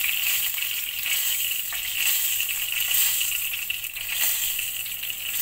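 Hot cooking oil sizzling in a wok as a whole fried fish is lifted out with tongs, with a few faint crackles of spatter.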